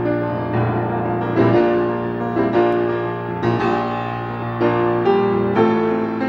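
Background piano music, a steady run of notes and chords changing about every half second to a second.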